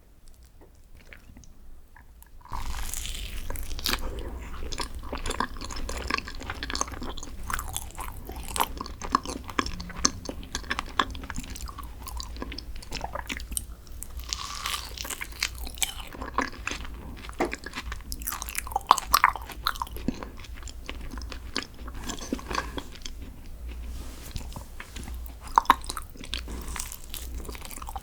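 Close-miked eating: biting into and chewing a soft green tea dessert, with dense, irregular mouth clicks. It starts abruptly about two and a half seconds in, after a near-quiet start.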